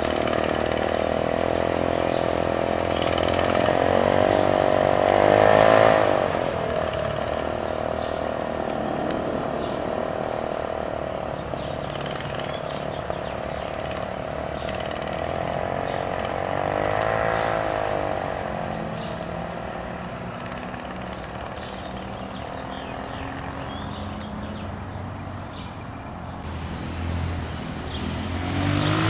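Small 13-horsepower engine of a ride-on vehicle running as it is driven around, its pitch rising and falling as it comes close and moves away, about six seconds in and again about seventeen seconds in.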